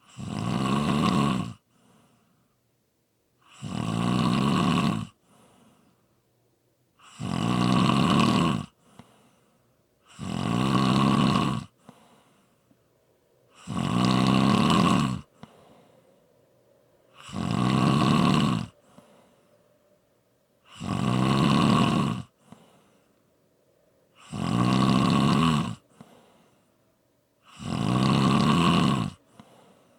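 A person snoring: nine long snores, each about a second and a half, coming steadily every three and a half seconds or so, with quiet gaps between.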